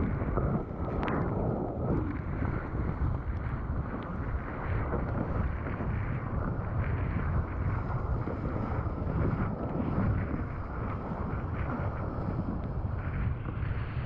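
Wind rumbling and buffeting on the microphone, over water rushing and splashing under a windsurf board as it sails. The splashing is busiest in the first couple of seconds, as the board comes through whitewater.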